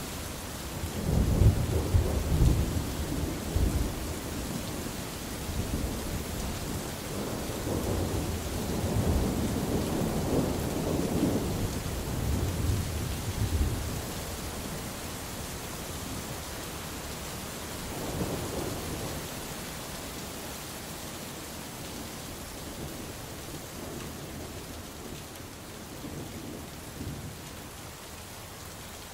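Steady rain with rolling thunder. The loudest rumbles come in the first few seconds, a long roll follows, then the thunder fades to quieter distant rumbles under the rain.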